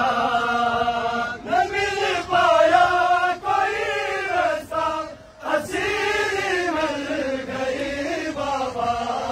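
Men chanting a noha, a Shia mourning lament, together in long held, wavering notes. There is a brief break about five seconds in.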